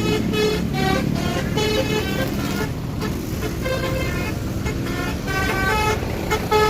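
A tour bus's basuri musical air horn playing a quick tune of short notes at changing pitches, with a short break a little before halfway. A low vehicle rumble runs underneath.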